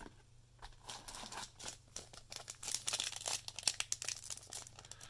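Foil wrapper of a Magic: The Gathering booster pack crinkling and tearing as it is ripped open by hand: a rapid crackle that starts about a second in and is thickest in the middle.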